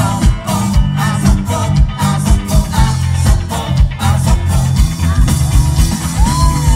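Live rock band playing through a PA, heard from the crowd: drums keeping a steady beat under a bass line and keyboard, with a man singing into a handheld microphone.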